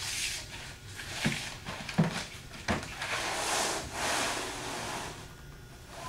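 Air dolly foot plates being slid and scraped across a tiled floor under a refrigerator: long scraping rubs, with three sharp knocks a little over a second, two seconds and nearly three seconds in.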